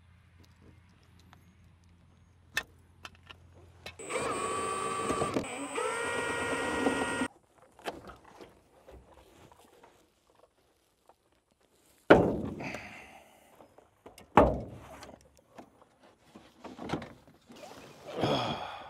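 Milwaukee cordless power driver running in two short bursts, each winding up to a steady whine, as it drives out trim screws. Later come two sharp, loud thumps a couple of seconds apart.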